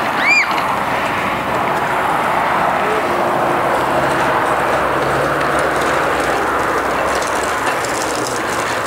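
Steady rushing noise with no rhythm, with a child's brief high-pitched squeal just after the start.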